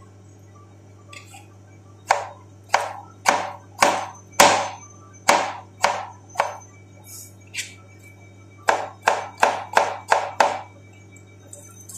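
Kitchen knife chopping a cucumber on a cutting board: a run of about eight chops a little over half a second apart, a pause of about two seconds, then a quicker run of six, each chop a sharp knock.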